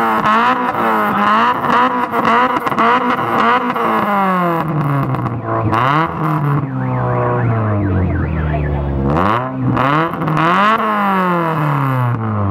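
Toyota Corolla sedan's engine revved through its large-bore exhaust pipe. Quick repeated throttle blips for about four seconds, then slower, longer revs that climb and drop back several times, the last one falling away near the end.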